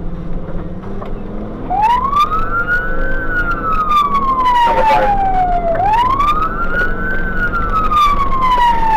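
Fire engine siren coming on about two seconds in and wailing, each cycle a quick rise in pitch and then a slow fall, about four seconds per cycle, over the truck's low, steady engine drone. It is heard from on board the truck as it runs an emergency response.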